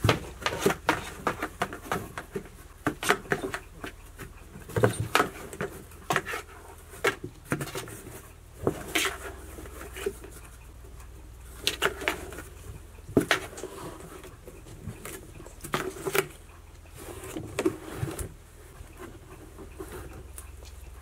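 Cats scrambling at and inside a cardboard box: irregular scratches, taps and knocks of paws and claws on the cardboard and wooden floor, coming in short clusters.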